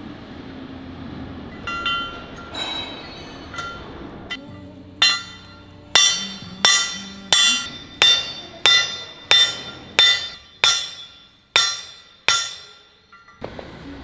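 Hand hammer striking a steel piece seated in the bore of a red-painted steel tiltrotator casting: a few light clinks, then about eleven sharp, ringing metal blows at a steady pace of roughly one and a half a second.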